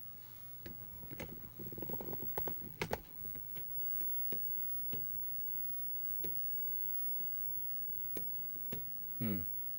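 Atari 810 floppy disk drive ticking: a quick run of clicks in the first few seconds, then single clicks about once a second. To the owner it doesn't sound like it's writing.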